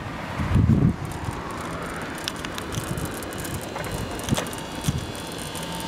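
Old Soviet bicycle being ridden on a paved street: a steady rolling hiss from tyres and drivetrain, a low rumble of wind or handling on the microphone about half a second in, and a few sharp rattling clicks from the frame and parts.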